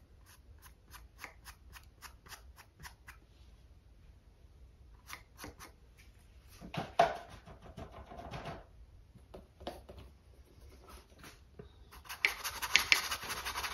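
Small paintbrush dabbing short strokes onto a stretched canvas, a quick run of light ticks at about three or four a second. Near the end it turns to a louder, steady scratchy scrubbing of bristles on the canvas.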